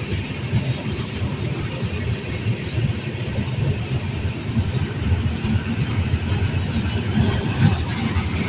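Union Pacific freight train rolling past: a steady, heavy rumble with faint clicks of wheels on the rails.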